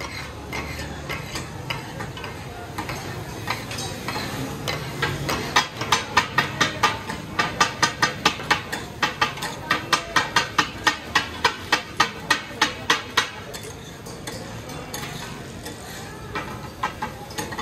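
Steel blades striking a flat iron griddle as goat offal is chopped for katakat: a fast, even clacking of about three to four strikes a second that starts about six seconds in and stops about thirteen seconds in, with lighter, scattered taps before and after.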